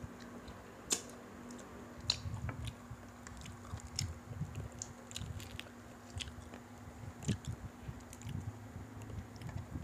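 Close-miked eating sounds of two people biting and chewing fried chicken and rice, with scattered small crunches and mouth clicks.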